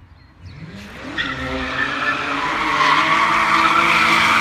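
Car engine revving up, then a long tyre squeal that grows louder, as an intro sound effect.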